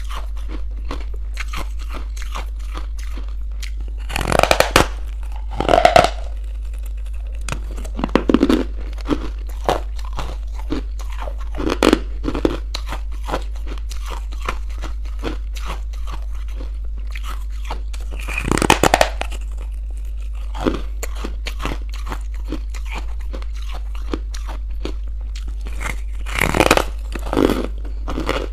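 Close-miked biting and chewing of crunchy buckwheat chunks: a steady crackle of small crunches, with loud bites about four and six seconds in, one near the middle and one near the end. A steady low hum runs underneath.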